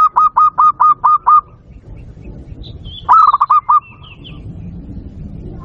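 Zebra dove (perkutut) calling: a fast run of clipped, evenly repeated cooing notes, about six a second, then a shorter run about three seconds in. A few fainter, higher chirps come between the runs.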